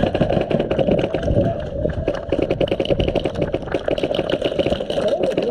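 Airsoft gun firing rapid full-auto strings of shots, a fast even clatter that thickens about two seconds in, over a steady hum.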